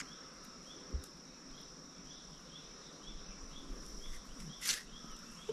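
Insects buzzing steadily, with a faint chirp repeating about twice a second. A short click about a second in and a brief rustle near the end come from a tuber's skin being peeled off by hand.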